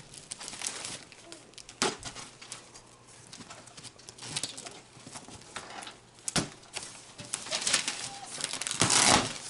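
Cardboard shipping box being opened by hand: scraping and rustling on the cardboard with a few sharp knocks, then a longer, louder rasp near the end.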